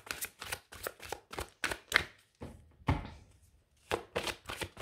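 A deck of large oracle cards being shuffled by hand: a run of quick card slaps and flicks, about three to four a second, with a duller thump about three seconds in and a short pause after it.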